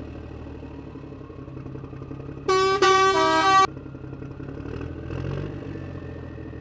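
A vehicle horn honks for a little over a second, about two and a half seconds in, over a steady low engine rumble: truck sound effects laid over a toy dump truck driving across sand.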